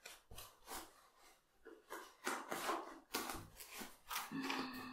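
Fabric rustling and rubbing in irregular bursts as a sewn cloth bag and its lining are turned right side out by hand.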